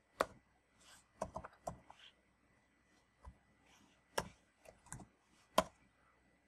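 Computer keyboard keystrokes: about a dozen separate key presses with pauses between them, as a short command is typed, rejected and retyped.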